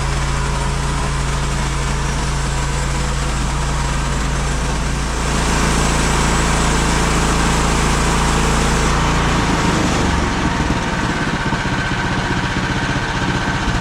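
Engine of a MechMaxx SM32 portable bandsaw sawmill running steadily, with a louder hissing cutting sound joining about five seconds in and the engine note shifting near ten seconds.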